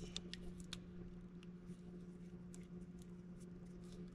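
Faint scattered clicks and ticks of a wire-piercing probe being worked through a wire's insulation at a wiring connector, over a steady low hum.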